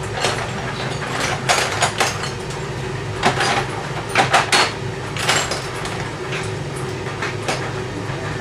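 Irregular metal clanks and knocks of hand tools working a pin out of a hydraulic lift cylinder, over a steady hum.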